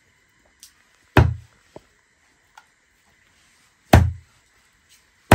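Dao, a heavy Nepali chopping knife, chopping chicken pieces on a wooden stump block: three heavy chops, each a sharp hit with a deep thud, with a few light taps between.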